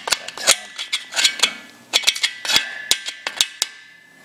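A metal screwdriver tip scraping and picking at crusted corrosion in the combustion chamber of an air-cooled VW cylinder head: a quick, irregular run of sharp clicks and scrapes that thins out near the end.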